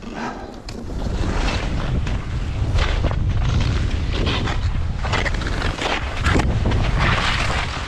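Wind rumbling on a helmet-mounted microphone while skis hiss and scrape through soft snow in repeated bursts, one per turn, on a steep descent. The sound gets louder about a second in as the skier picks up speed.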